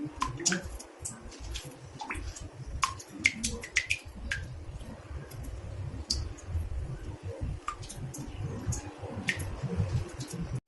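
Water drops falling irregularly into a bathtub, each a short plink at a different pitch, over a low, uneven rumble.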